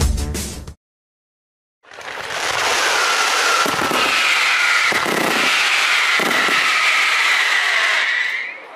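Fireworks going off: a loud, dense crackle with whistling tones running through it and a few low booms of bursting shells. It starts about two seconds in, after music breaks off into a moment of silence, and falls away near the end.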